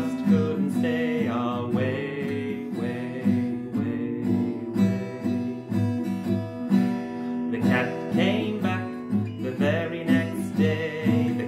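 Steel-string acoustic guitar strummed in a steady rhythm.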